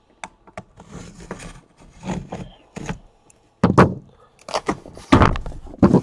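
Cardboard case being handled on a tabletop: a string of irregular knocks and thumps, the loudest few in the second half.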